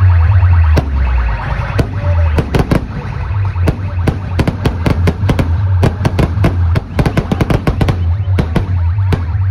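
Fireworks: rockets and aerial shells bursting overhead in a quick run of sharp cracks and bangs, several a second from about two and a half seconds in, over music with a heavy, steady bass.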